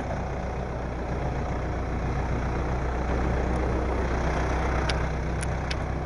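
A machine's engine or motor running steadily with a low hum. A few sharp clicks come near the end.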